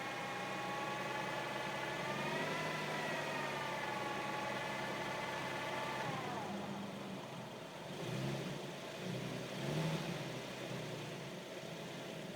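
Infiniti G37's 3.7-litre V6 running with a high whine of several stacked tones that rises slightly about two seconds in, then glides down and fades about halfway through. The engine then swells briefly twice, louder the second time. The cause of the whine is unknown to the owner.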